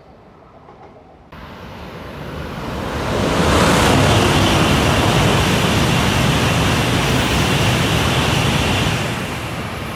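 N700-series Shinkansen bullet train rushing past the platform at speed: a rush of noise that builds from about a second in, is loudest from about three seconds on with a faint steady high whine in it, and eases off near the end.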